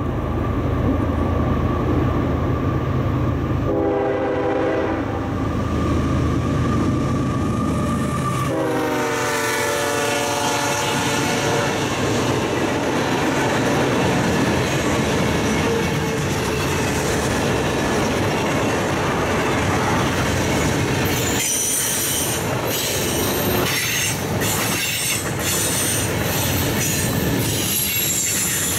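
A freight train passing close by. The diesel locomotives rumble and sound the horn twice: a short blast about four seconds in and a longer one about four seconds later. Then the freight cars roll past with steady wheel noise, clicking over the rail joints near the end.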